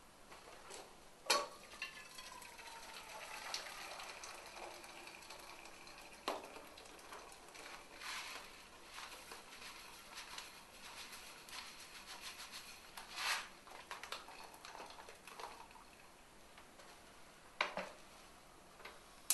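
Kitchen sounds at a gas hob: chicken pieces frying quietly in a pan, with sharp knocks of pans and utensils (one about a second in, another near the end) and a short rustling pour into a saucepan.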